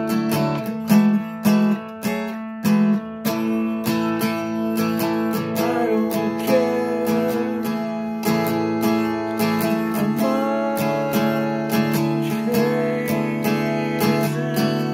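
Steel-string acoustic guitar strummed in a steady chord pattern, with a man's voice singing along from about the middle on.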